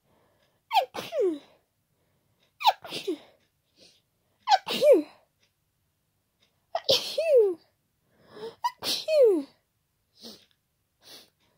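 A run of five loud sneezes from a person with a head cold, about two seconds apart, each a sharp burst with a voiced 'choo' sliding down in pitch. Faint breaths follow near the end.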